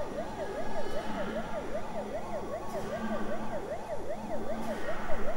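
Siren-like electronic warble from a gallery video installation's soundtrack: a tone that sweeps up and down about three times a second, over a steady low hum.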